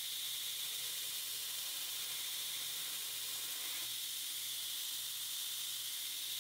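Steady, even hiss with no distinct knocks or tones.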